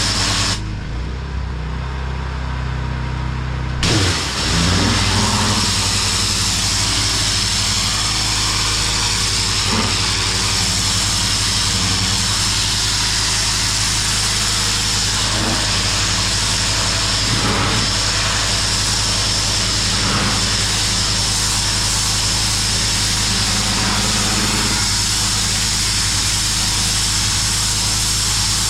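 Petrol pressure washer engine running steadily under a loud hiss of high-pressure water spray. The spray cuts out for a few seconds near the start, leaving the engine alone, then comes back on about four seconds in and runs steadily.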